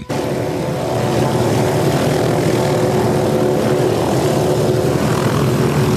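Aircraft engine noise: a steady drone with many held tones, starting abruptly.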